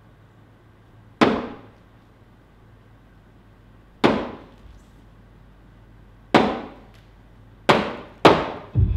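Five sharp struck percussive hits, spaced a few seconds apart, each ringing away over about half a second, as part of a sparse dance soundtrack. A beat-driven music track starts right at the end.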